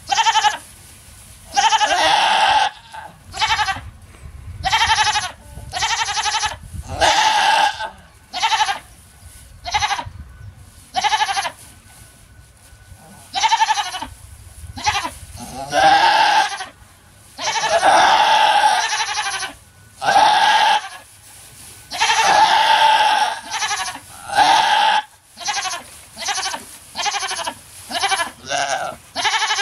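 A nanny goat in labour, delivering a kid, bleating loudly over and over. The calls last from half a second to about a second and a half each and come every second or two.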